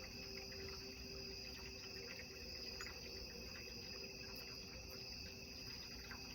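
Quartz crystal singing bowls sounding faintly, several steady pitches held together without a break, from low to high.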